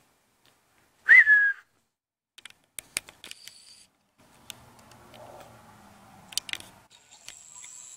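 A single short whistle about a second in, rising quickly and then held briefly. A few sharp clicks and soft handling rustle follow.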